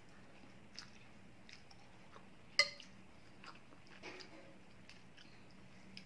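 A person eating noodle soup, faint chewing and mouth sounds, with a sharp click about two and a half seconds in and a few smaller ones.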